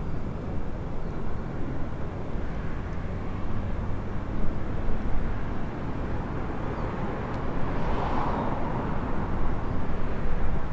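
Wind buffeting the microphone outdoors: a fluctuating low rumble with no clear pitch, swelling slightly about eight seconds in.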